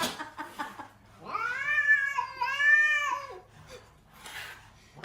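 Cat yowling: one long drawn-out call in two swells, starting about a second in, after a few short clicks.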